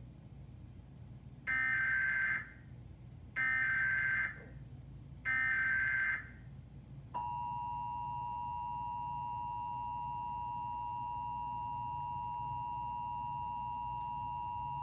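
Emergency Alert System SAME header: three short bursts of digital data tones, about a second each and evenly spaced. Then comes the EAS two-tone attention signal (853 and 960 Hz), held steady for about eight seconds and cutting off near the end.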